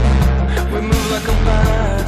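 Music with drums and a heavy bass line, steady beat.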